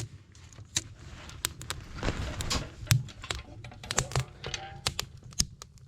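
Wind rumbling on the microphone, with a run of irregular sharp clicks and knocks.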